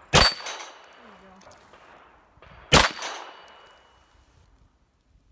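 Two pistol shots about two and a half seconds apart, each followed by the clang of a steel plate on a plate rack being hit and ringing out briefly.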